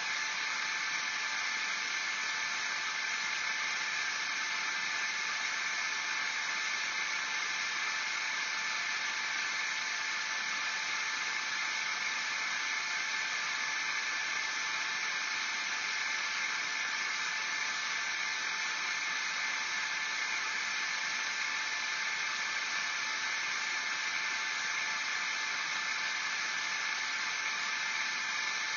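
Steady, even hiss with a faint high whine, unchanging throughout; no barking or movement sounds.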